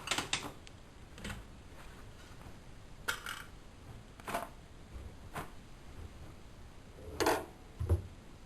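Bosch WFM3010 washing machine tumbling a load of laundry, with irregular metallic clinks and knocks, about one a second, as hard bits in the wash strike the drum. The loudest pair of knocks comes near the end.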